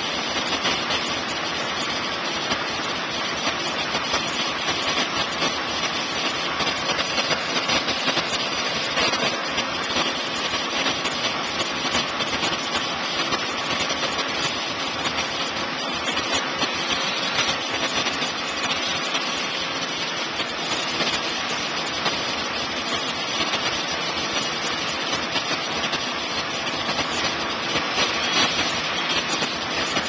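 Mobile crane's engine running steadily.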